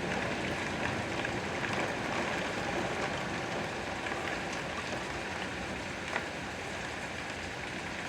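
Steady rain falling, with a few louder single drops striking now and then, one clearly about six seconds in.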